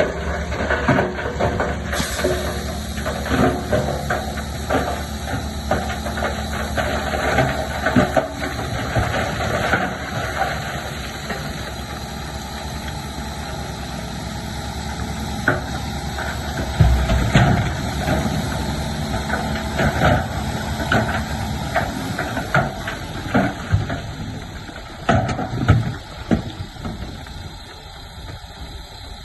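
Bulldozer's heavy diesel engine running steadily, with scattered knocks and clanks of rock and steel and a deeper surge of engine and rumble about two-thirds of the way through.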